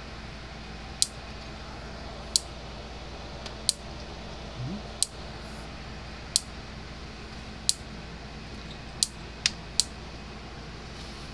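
Gallagher M300 electric fence charger pulsing: a sharp click about every 1.3 seconds, with two extra clicks in quick succession near the end, over a faint steady hum. The repairer suspects it is arcing somewhere on the board.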